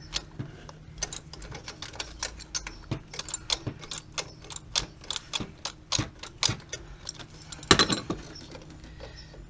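Hand ratchet clicking in quick, uneven runs of ticks as the wastegate actuator's mounting bolts are backed out, with a louder clatter of metal about eight seconds in.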